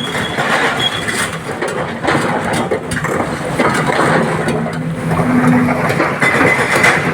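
Heavy diesel engine of an excavator running steadily, with repeated knocks and clatter from the machine's work.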